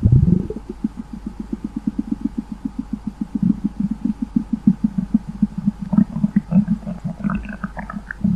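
Human stomach gurgling: a low rumble right at the start, then a fast run of bubbling pops, about eight a second, with higher squeaky gurgles joining near the end.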